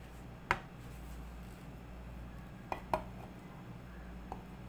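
Kitchen clatter of utensils and dishes: a sharp clink about half a second in, two more close together near three seconds and a softer one later, each ringing briefly, over a steady low hum.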